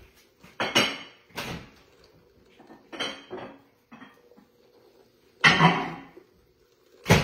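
Kitchen dishes and utensils clattering: a handful of separate knocks and clanks, the loudest about five and a half seconds in.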